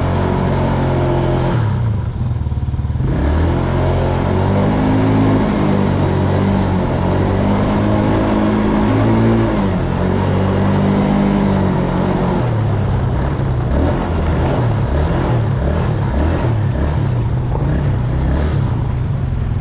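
Small ATV (four-wheeler) engine running under a GoPro mounted on the machine, its pitch rising and falling again and again as the throttle is opened and eased while riding.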